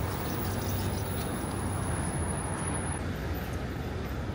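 Steady city traffic noise, a low rumble of passing vehicles on the road, with a faint high-pitched whine that stops about three seconds in.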